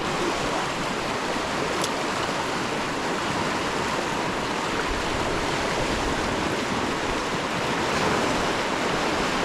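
Steady rush of a river's flowing water, the North Branch of the Potomac.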